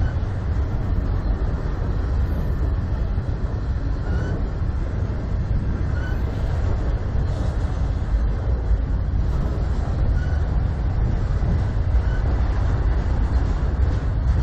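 Freight train of autorack cars rolling steadily past, a continuous low noise of steel wheels on the rails.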